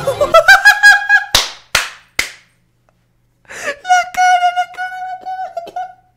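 A man's high-pitched, stuttering squeal that rises in the first second, then three sharp slaps about half a second apart. After a short pause comes a breath and a long, high wail that shakes in quick pulses, a mix of laughing and groaning in exasperation.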